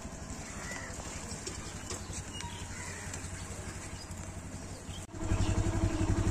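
An engine running steadily with a low, pulsing throb. It gets louder after an abrupt change about five seconds in.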